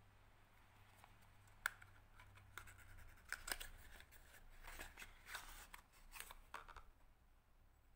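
Small close-up handling noises: a sharp click about one and a half seconds in, then a run of quick snips, clicks and crinkles for about five seconds that stops near the end.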